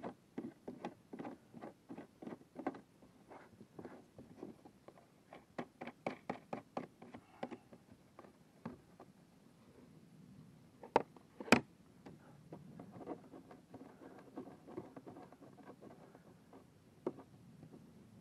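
Irregular light taps and clicks from close handling, with two sharp, much louder clicks about half a second apart roughly two-thirds of the way through.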